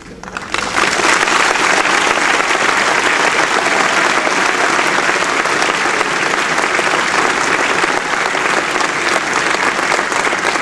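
Audience applauding: loud, dense clapping breaks out about half a second in and keeps up steadily.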